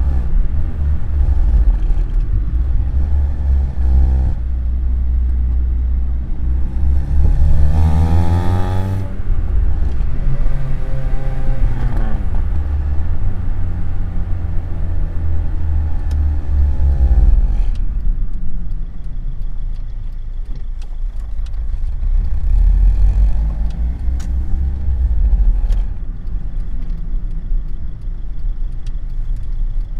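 Honda Civic Type R EP3's 2.0-litre i-VTEC four-cylinder engine revving up and down several times. The pitch climbs steeply and cuts off abruptly about nine seconds in, then falls away and rises again in later, gentler sweeps.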